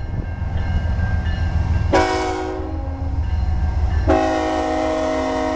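Approaching diesel locomotive sounding its air horn for a grade crossing: one blast about two seconds in, then a second, longer blast starting about four seconds in, over the low rumble of the locomotive.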